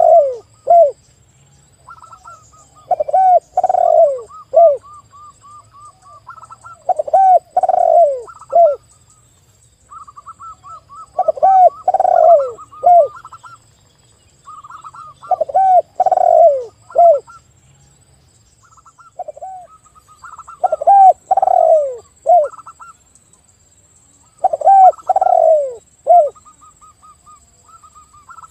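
A spotted dove and a zebra dove calling together. Loud phrases of low, falling coos come about every four seconds, with quieter runs of quick, higher cooing notes between them.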